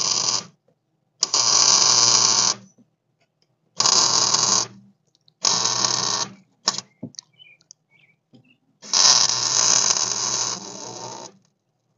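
Electric welder arcing in five short bursts of one to two and a half seconds, each a steady buzzing crackle with a hum underneath. Welding is being built up on a broken exhaust manifold bolt in the cylinder head. The last burst is the longest and drops in level before it stops.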